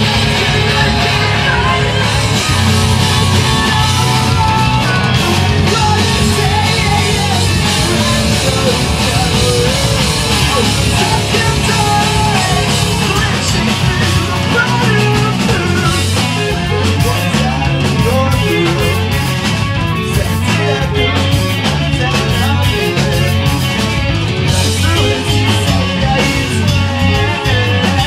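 Live rock band playing loudly: electric guitars, bass guitar and a drum kit, with a singer's vocals in the mix. The drums and cymbals come through more sharply in the second half.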